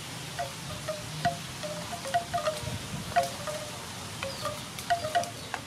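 Banana pieces and a wooden ladle knocking against a metal cooking pot as they are scraped in from a bamboo basket. The result is a quick, irregular run of light clinks, each leaving the pot ringing briefly.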